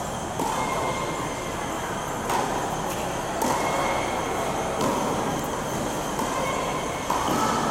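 A steady rushing noise with a hall echo. Every second or two a faint knock comes and the level steps up.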